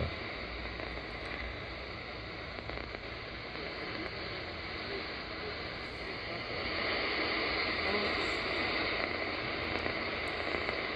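Shortwave static from a DSP SDR (Malachite clone) receiver's speaker in AM mode as it is tuned between stations in the 49-metre band: a steady hiss with no clear station, growing louder about six and a half seconds in.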